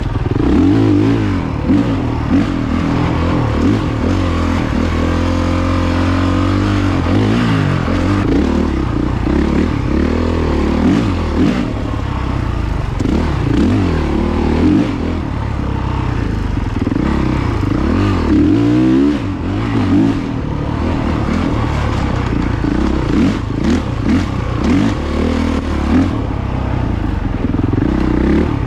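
Dirt bike engine being ridden hard, revving up and down repeatedly, its pitch rising and falling throughout.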